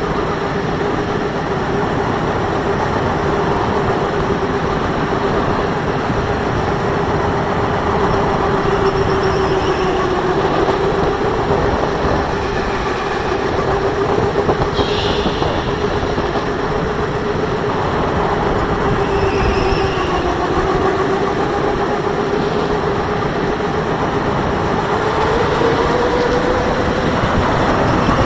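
Electric go-kart heard from the driver's seat at speed: a steady motor whine over loud rushing wind and tyre noise. The whine dips in pitch twice and climbs again near the end.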